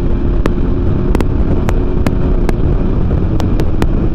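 Sport motorcycle engine running at a steady highway speed, with heavy wind rushing over the microphone and scattered sharp clicks.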